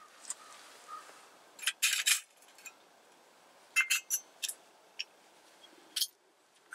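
Metal camp cookware clinking: a pot stand and a folding pot gripper knocking against each other and the rock as they are handled, in a cluster about two seconds in, a quick run of clinks about four seconds in, and one more near the end.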